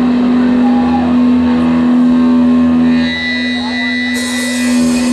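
Electric guitar through a stage amplifier holding one steady low note, with a higher steady tone joining about three seconds in; both cut off abruptly at the end.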